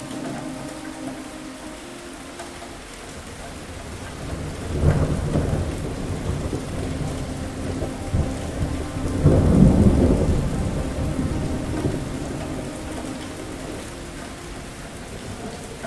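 Steady rain with two rolls of thunder: a rumble about five seconds in, then a louder one around nine to ten seconds in that dies away over a couple of seconds.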